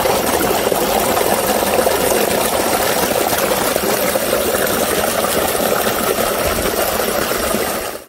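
Waterfall rushing: a loud, steady wash of falling water close to the microphone.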